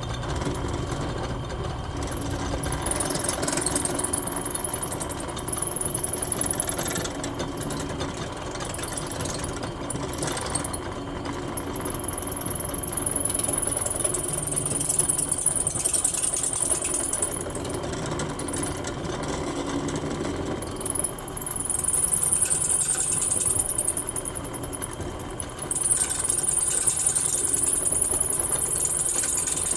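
Electric drill running under load, its bit cutting into a broken steering-gearbox bolt and squealing against the metal in several long stretches, with short easings of pressure between them.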